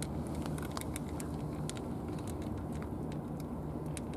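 Cats eating from plastic dishes: many small, irregular crunching clicks of chewing and of food against the dish, over a steady low hum.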